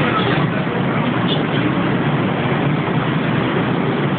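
Wind rushing over the microphone on an open-air, mesh-screened observation deck: a steady, loud rumbling hiss with no breaks.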